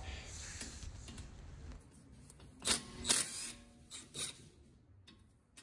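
A few faint, short clicks and knocks of a cordless right-angle impact wrench and its socket being handled and fitted onto a brake caliper bolt. The tool's hammering mechanism is not heard running.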